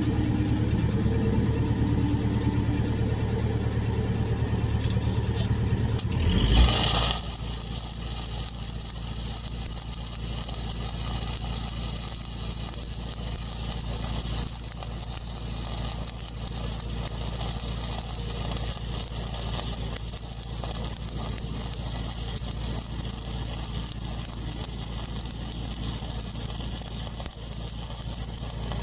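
A steady low machine hum, then about six seconds in an electric welding arc strikes and runs with a continuous crackling sizzle that does not break.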